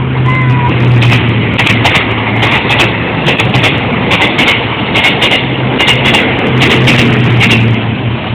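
A train passing close by: a loud rumbling run with a long string of sharp, irregular clacks from about a second in until near the end, over a steady low hum.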